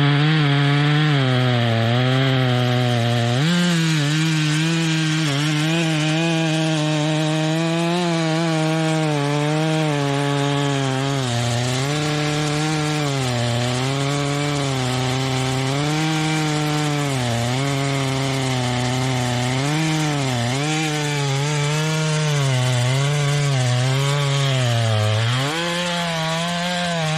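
Chainsaw cutting through wood, its engine running continuously under load, with the pitch repeatedly dipping and recovering as the chain bites into the cut and eases off.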